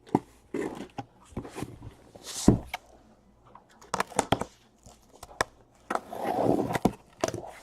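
Handling of cardboard trading-card boxes from a freshly opened case: irregular taps, knocks and short scrapes, with a longer scraping rustle about six seconds in.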